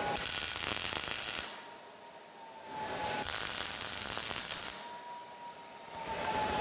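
MIG welder laying two short tack welds on steel square tubing: two crackling sizzles of about a second and a half each, the second starting about three seconds in.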